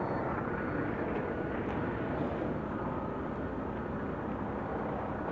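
Steady rumble of road traffic, with heavy trucks passing close by.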